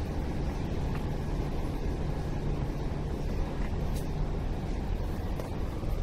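Steady city street ambience: an even low rumble of background traffic and town noise, with no distinct events.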